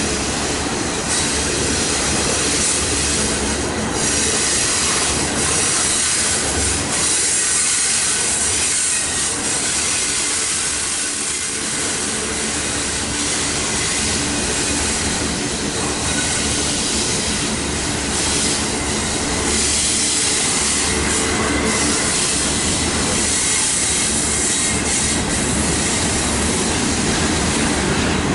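Union Pacific intermodal freight train rolling past: a steady, unbroken noise of steel wheels on the rails, strong in the high pitches, over a low rumble.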